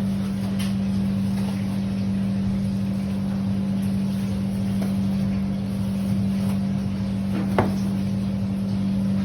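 A steady low mechanical hum, like a motor running, with a single short sharp click about seven and a half seconds in.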